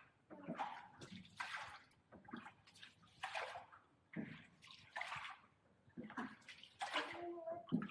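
Oars of a rowed boat dipping and pulling through calm water, a soft splash and swish about once a second.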